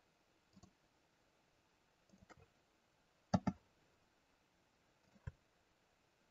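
Scattered clicks of a computer mouse and keyboard as mesh vertices are picked and a face is filled. The loudest is a quick pair of clicks about three and a half seconds in.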